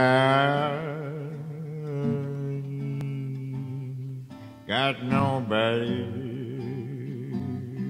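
Slow blues music: acoustic guitar backing under a wavering melody line with strong vibrato that swells in at the start and again about five seconds in.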